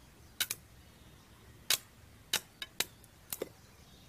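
Sharp, irregular crackling snaps of an electric arc striking as a welding rod is touched against a small steel piece. The rod is powered from mains through a homemade salt-water welding rig, and the sparking shows the rig is working. There are about eight snaps, some in quick pairs.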